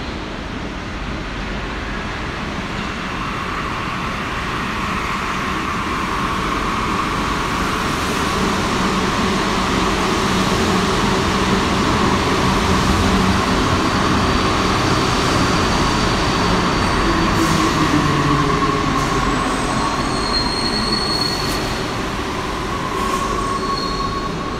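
Santiago Metro NS-04 train coming in out of the tunnel along the platform. Its running noise builds to a peak and then eases off. A whine falls in pitch as it slows, and a high squeal comes in near the end.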